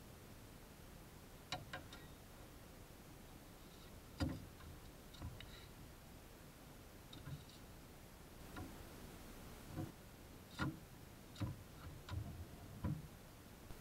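Scattered, irregular light clicks and knocks of hands and tools handling parts in an old Land Rover's engine bay.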